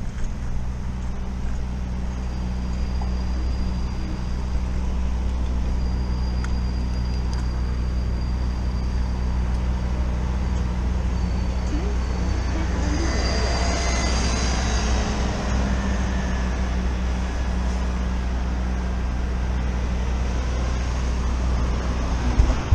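Road traffic at a junction: a steady low engine hum, with a vehicle passing close about halfway through.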